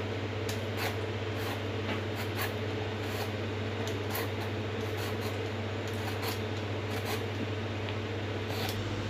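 Y-shaped vegetable peeler scraping the skin off a ridge gourd in short strokes, roughly two a second, over a steady low hum.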